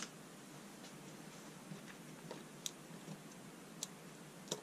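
A sharp click right at the start, then half a dozen lighter, scattered clicks and taps as fingers work the levers of a small plastic lever-type wire connector to free the light's leads.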